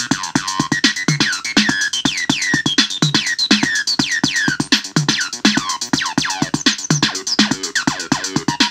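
Roland TB-303 bass synthesizer playing a fast acid bassline, each note a quick downward sweep, over a Roland TR-606 drum machine beat with steady fast hi-hats. The 303's knobs are being tweaked live, so the sweeps change as it plays.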